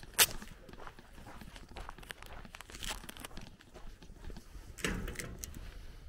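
Footsteps crunching on a gravel lane, an uneven run of short crackly steps. A single sharp click about a quarter of a second in is the loudest sound.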